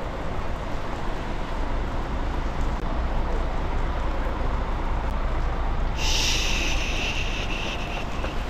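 Wind buffeting a moving handheld camera's microphone outdoors in the rain: a steady low rumbling noise. About six seconds in, a high hiss joins for about two seconds.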